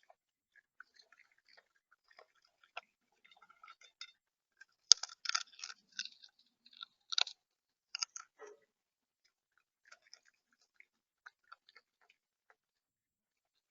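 Irregular sharp taps and crunches of seed being pecked and cracked on a bird feeder, heard close up through the feeder camera's built-in microphone. The taps come thicker and louder from about five seconds in, with the single loudest click then, and thin out again after about eight seconds.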